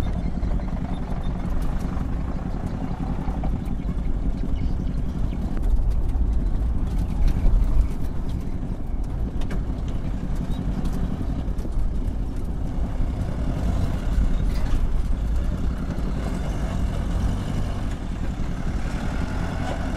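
Diesel engine of a light truck loaded with electricity poles, running at low speed as it crawls through deep mud ruts. The engine grows louder as the truck draws close and is loudest about halfway through.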